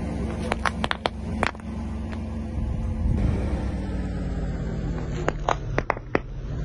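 A car engine hums steadily as the car creeps forward on asphalt. A few sharp clicks come about a second in. Near the end there is a quick run of sharp pops and crackles as the tyre rolls onto and bursts plastic toothpaste tubes.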